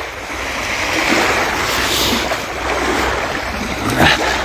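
Small waves washing onto a sandy shore, a steady hiss of water, with wind rumbling on the microphone. A brief knock about four seconds in.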